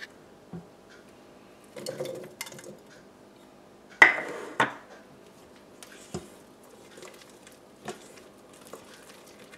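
Silicone spatula scraping and knocking against a stainless steel mixing bowl while folding muffin batter. The loudest knock, about four seconds in, rings briefly, and a few lighter taps follow.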